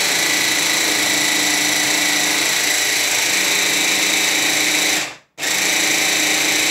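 Electric stick blender with a chopper bowl attachment running, grinding fried peanuts and palm sugar into peanut sauce paste. The motor stops for a moment about five seconds in, then starts again.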